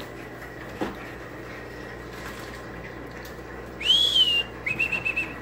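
A person whistling: one high note that rises and then falls about four seconds in, followed by a quick warbling run of short notes.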